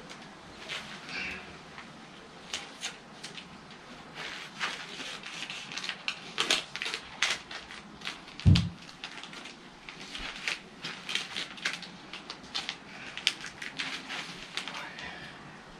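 Irregular clicks, crackles and light knocks of canoe-building materials being handled and worked, with one dull thump about eight and a half seconds in.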